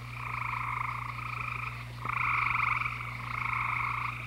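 Frogs trilling in chorus: long, pulsing trills that overlap, each lasting a second or two with brief breaks between them.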